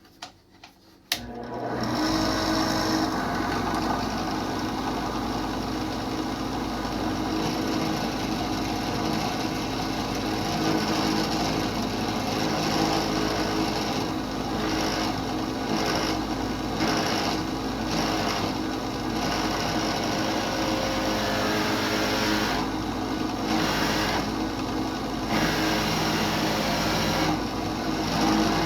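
Electric drill switching on about a second in and running steadily under load while it drills a hole in the harp's wooden soundboard.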